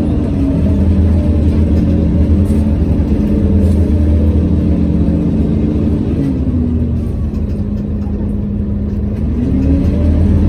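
Inside a Scania OmniCity CN230UB city bus on the move: a steady low rumble under a loud ventilation fan, with a droning tone that sags lower about six seconds in and climbs again near the end.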